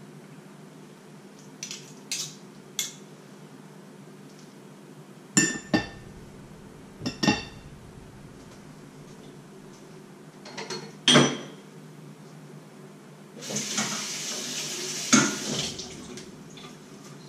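Metal kitchen utensils clinking and knocking against a stainless steel cooking pot and a plate, in scattered sharp strikes, some in quick pairs. Near the end comes a couple of seconds of louder rushing clatter with one hard knock in it.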